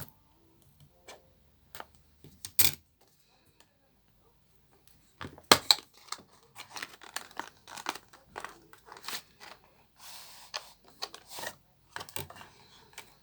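Product packaging being handled and opened by hand: scattered clicks and knocks, one loud knock a few seconds in, then a long run of crinkling and tearing.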